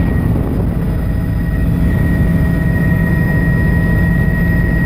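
Helicopter in flight heard from inside the cabin: a loud, steady engine and rotor drone with a constant high whine over it.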